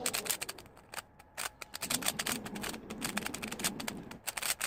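3x3 speedcube being turned fast by hand: a quick, irregular run of plastic clicks and clacks as the layers snap through their turns.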